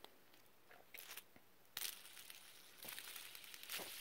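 Faint clicks and scrapes of a plastic fidget spinner being handled, then a soft whirring hiss from about three seconds in as it is spun.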